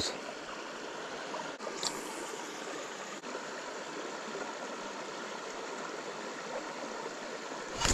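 Creek water running steadily, a even rushing hiss, with a few faint clicks.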